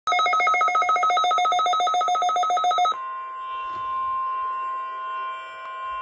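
A NOAA weather radio receiver sounds a rapid trilling alert beep, about eight pulses a second, for roughly three seconds. Then the broadcast's steady 1050 Hz warning alarm tone plays through the radio's speaker, one unbroken tone, as part of the required weekly test of the alert system.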